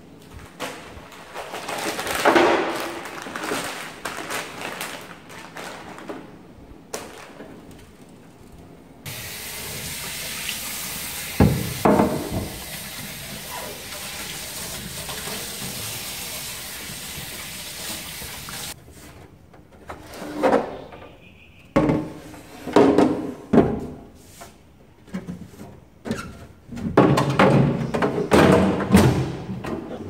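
Knocks and clatter of packets and a clear plastic refrigerator drawer being handled. About nine seconds in, a pull-out kitchen faucet sprays water onto the drawer for about ten seconds and cuts off suddenly, followed by more plastic knocks and thunks.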